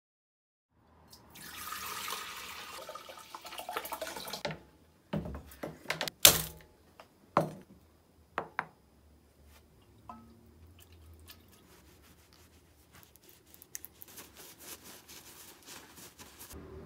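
Workshop handling sounds: a hiss lasting about three seconds, then a run of sharp clicks and knocks, the loudest about six seconds in, and near the end a microfiber cloth rubbing over a small steel rod.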